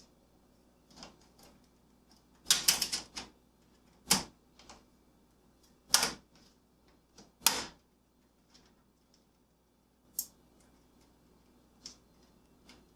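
Hands handling computer parts: a scattering of short sharp clicks and brief crackly rustles, as of a metal I/O shield and packaging being worked.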